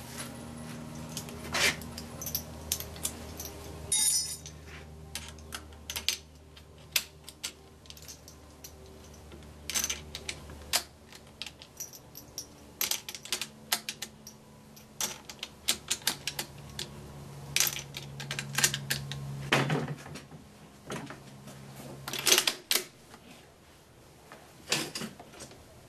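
Mosin-Nagant bolt-action rifle being loaded: scattered metallic clicks, ticks and small rattles as cartridges are handled and pressed into the open action, with the bolt worked before the rifle is brought up to aim.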